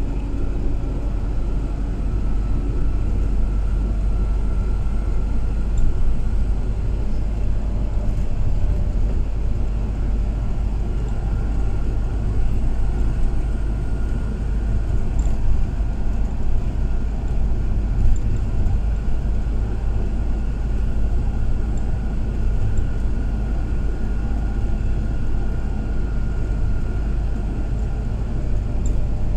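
Car driving at steady speed, heard from inside the cabin: a constant low rumble of engine and tyres on the road, with a faint high whine that drifts slowly in pitch.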